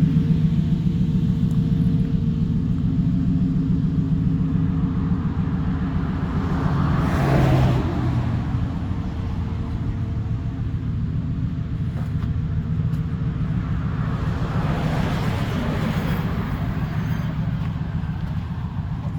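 A car engine idling with a steady low rumble, while other vehicles pass by twice: once about seven seconds in and again around fifteen seconds.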